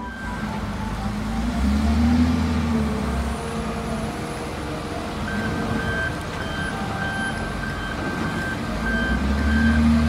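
Volvo wheel loader's diesel engine running under load, swelling louder twice as it works the block. A reversing alarm beeps at an even pace from about halfway through.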